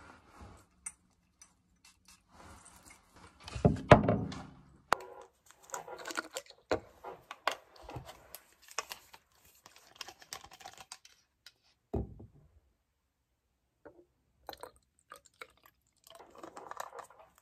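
Close-up handling sounds of plastic bottles and clothing: clicks, rustling and small knocks, with a louder thump about four seconds in, as hand sanitizer is moved into a small clear bottle. Near the end a short soft trickle as the liquid is poured from a white plastic bottle.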